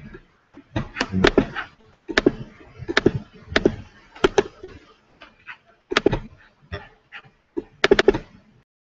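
Sharp clicks and taps at a computer, several a second in irregular clusters, often two or three close together: keys and mouse buttons being hit while trying to get screen sharing working.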